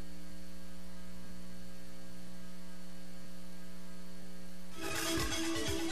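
Steady electrical mains hum on the broadcast audio, a low buzz with several even overtones and no other sound. Near the end a station ident jingle cuts in over it.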